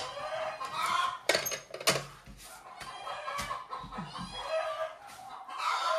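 Chickens clucking, with a few sharp knocks between about one and two seconds in.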